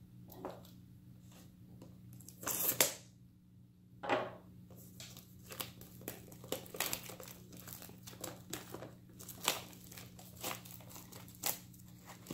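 Plastic shrink wrap being torn and crinkled off a sealed trading card booster box. There is a louder rip about two and a half seconds in and another at about four seconds, then a run of quick crinkles as the wrap is pulled away.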